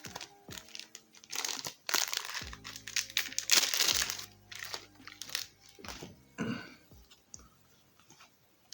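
Plastic trading-card pack wrapper crinkling and tearing in several bursts, loudest about three and a half seconds in, over background music.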